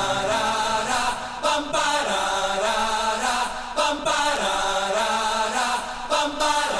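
Music with a chanted or sung vocal line held over it, broken by brief gaps.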